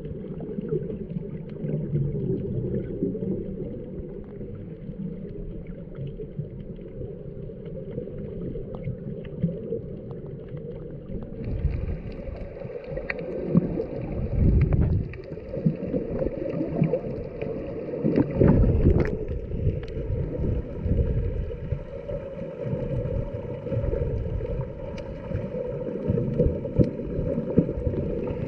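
Muffled underwater sound of seawater heard through an action camera's waterproof housing: a dull, steady rush with the high end cut off, and a few heavier low surges about halfway through.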